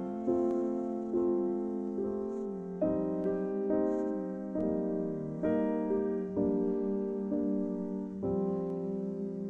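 Background piano music: a slow run of chords, a new one struck a little under once a second and left to ring and fade.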